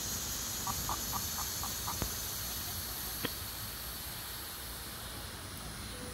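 Young chickens clucking softly: a quick run of six short clucks, about four a second, over a steady hiss, followed by two faint clicks.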